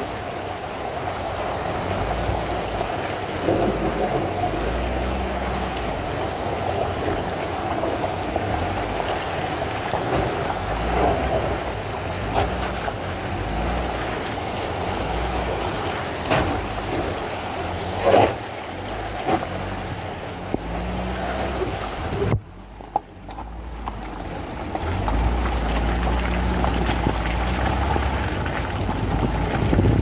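A vehicle driving slowly up a wet, muddy track: engine and tyres running under steady wind and water noise at the open window. There are two short knocks about two thirds of the way through, and the sound drops away suddenly for about a second before picking up again.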